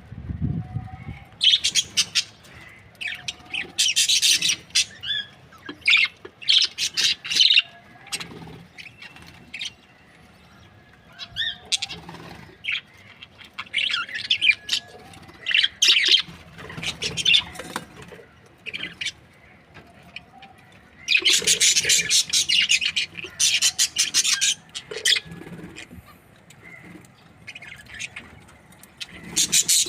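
Budgerigars chattering in bursts of rapid, scratchy chirps and squawks, with short quiet gaps between; the longest, loudest run of chatter comes about two-thirds of the way through.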